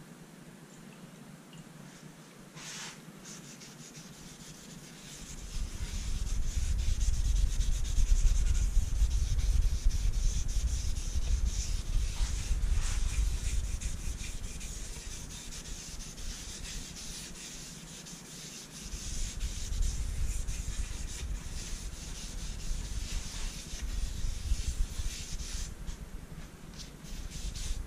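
A cloth pad scrubbing dye into the bare wooden top of a guitar body: a steady rubbing hiss over a heavy low rumble. It starts about five seconds in and dips briefly about two-thirds of the way through.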